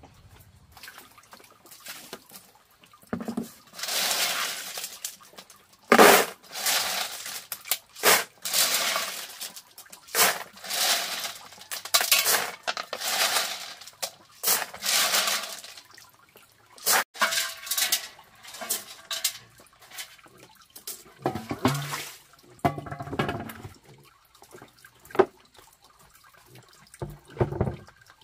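Repeated splashes of water, about one every second and a half for much of the first half, followed by scattered clinks and low knocks of hard objects.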